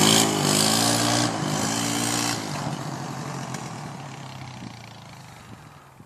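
E-Ton automatic four-stroke ATV engine revving up and down about three times during a wheelie, then fading steadily as the quad rides off down the road.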